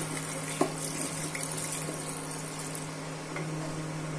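Coconut milk pouring from a glass jug into a hot pan of fried fish heads and lentils, a splashing, running-liquid sound that dies away about three seconds in. There is one sharp knock about half a second in, and a steady low electrical hum from the cooktop underneath.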